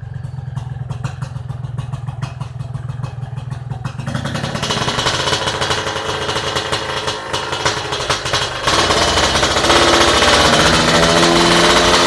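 Yamaha RX-King's two-stroke single-cylinder engine with a raspy exhaust note. It idles with a fast rapping beat, is revved up about four seconds in, and from about nine seconds is held at high revs, louder and steady.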